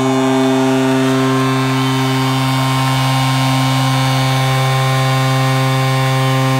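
Ice hockey arena goal horn sounding one long, steady, low note, signalling a home-team goal.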